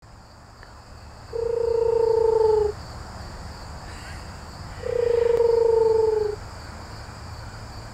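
Eurasian eagle-owl hooting: two deep hoots, each about a second and a half long and falling slightly in pitch, about two seconds apart.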